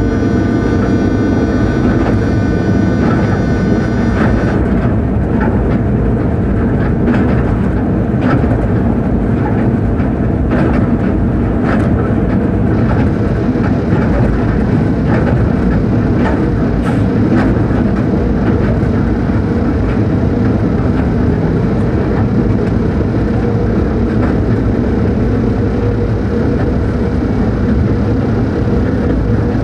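Cab noise of a Czech class 363 electric locomotive under way: a steady rumble of wheels on rail and running gear. A set of high steady tones sounds over it for the first four seconds or so, and scattered sharp clicks of the wheels over rail joints come in the middle.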